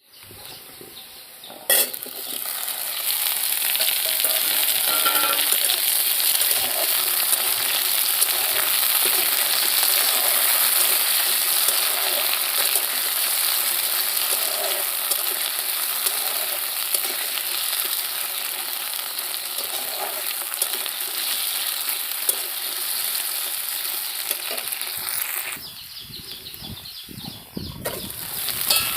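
Food sizzling in hot oil in a frying pan, a dense steady crackle that begins after a sharp knock about two seconds in. It goes quieter for a couple of seconds near the end, then picks up again.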